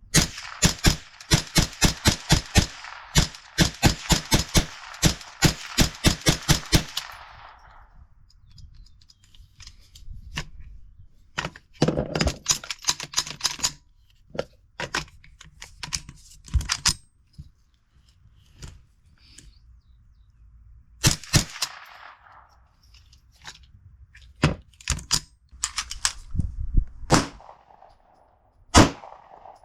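Rapid gunfire at a shooting range: a fast string of shots, about four a second, for some seven seconds, then scattered single shots.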